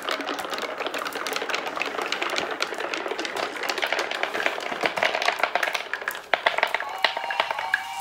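Many glass marbles rolling down a wooden marble run, a dense patter of clicks as they strike the wooden baffles and one another, with a short lull about six seconds in.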